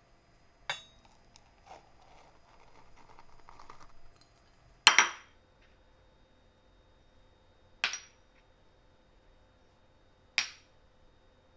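Dry ingredients going into a stainless steel mixing bowl: a soft hiss as flour pours in, then three sharp clinks about two and a half seconds apart, the first the loudest, as small cups of sugar, salt and yeast knock against the bowl.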